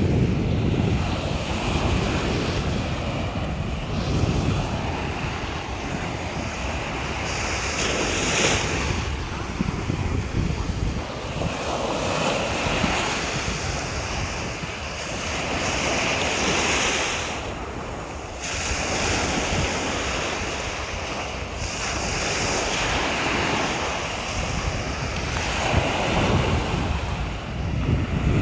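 Small sea waves breaking and washing up a sandy beach, each wash swelling and fading every few seconds, with wind buffeting the microphone.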